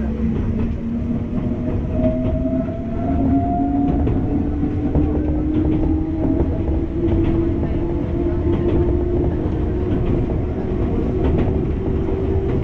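Enoshima Electric Railway (Enoden) train running, heard from inside the car: a steady low rumble under a motor whine that climbs slowly in pitch as the train gathers speed, with a few wheel clicks over the rail joints.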